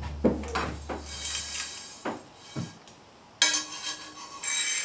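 A steel frying pan of dry-roasted rice knocks and rattles as it is lifted off the gas hob's grate. About three and a half seconds in, the golden-brown rice is poured into a stainless steel bowl with a rattling hiss of grains and the bowl ringing, louder near the end.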